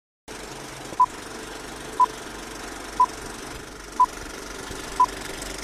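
Film-leader countdown effect: a short, loud, high beep once a second, five times, over a steady mechanical clatter and hiss like an old film projector running. It starts abruptly out of silence about a third of a second in.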